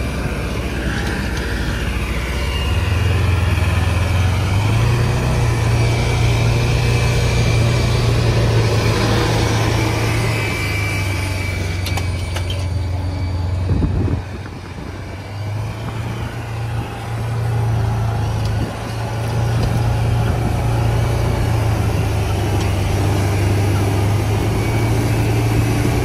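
Tractor engine running steadily under load while pulling a seed drill across the field. The engine note steps up a few seconds in, and the sound drops for a couple of seconds about halfway through before returning.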